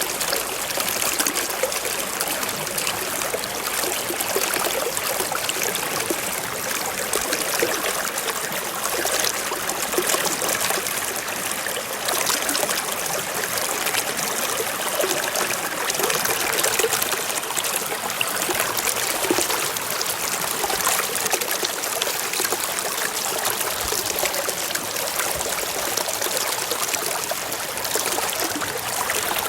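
Shallow stream trickling and babbling over rocks, a steady rush of water.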